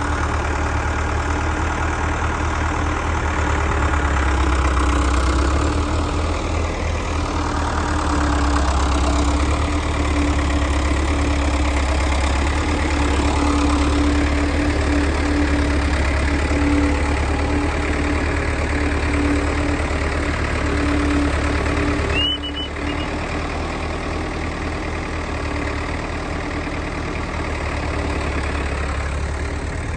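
Vehicle engine idling steadily with a low hum, with a short high squeak about twenty-two seconds in.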